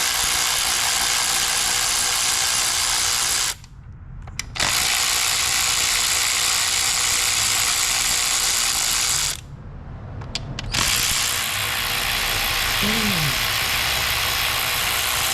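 Powered ratchet running in three bursts of several seconds each, with short pauses between, as it spins out the ignition coil hold-down bolts.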